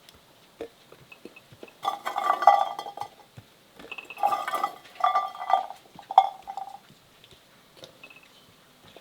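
Kitchenware clinking and scraping in four bursts of about a second each, with a ringing tone.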